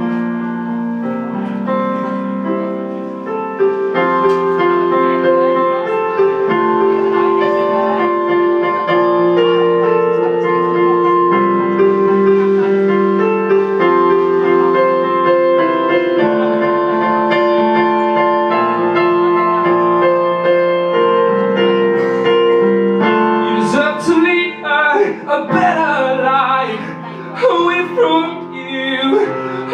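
Electronic stage piano playing an instrumental passage of held chords and a melody line. About 24 seconds in, a man's singing voice comes in over the piano.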